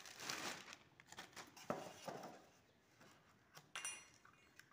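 Faint rustling and crinkling of a clear plastic bag being pulled off a new ceiling fan motor, with a few light clicks.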